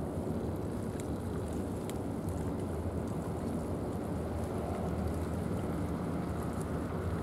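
Steady low outdoor rumble, with a couple of faint clicks about one and two seconds in.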